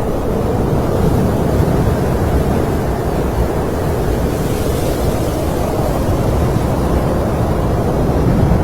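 Snowstorm wind blowing steadily, a deep rushing noise with a slight gust about halfway through.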